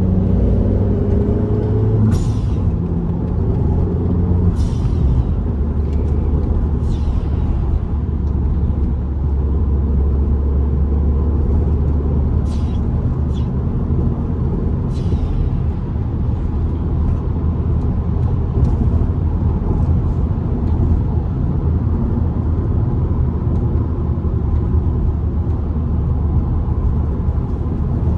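Car driving at road speed: a steady low engine and road rumble. Several short hisses come through, spread over the first half.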